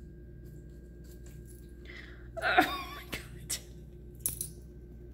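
Steady low hum with a faint high whine, broken by a few sharp light clicks in the second half.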